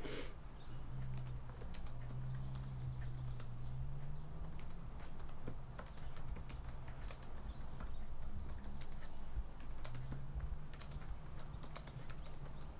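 Typing on an Apple MacBook laptop keyboard: a run of irregular light key clicks. A low hum rises underneath twice, about a second in and again near the end.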